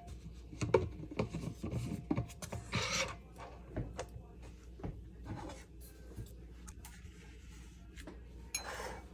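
Faint clicks and light knocks from kitchen items being handled, with two short rubbing or scraping noises, one about three seconds in and one near the end.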